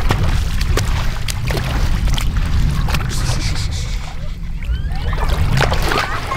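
Water sloshing at a rocky shoreline over a steady low rumble, with scattered sharp clicks.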